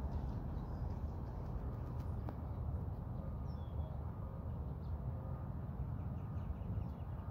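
Steady low outdoor rumble, with a few faint, short bird chirps about three and a half seconds in.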